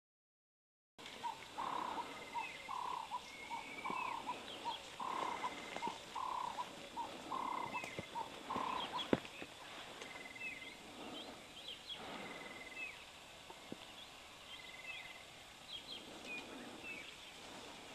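Wild animal calls starting about a second in: a quick run of short, repeated calls for the first half, and a higher trilled call repeating about once a second throughout. A single sharp click about nine seconds in.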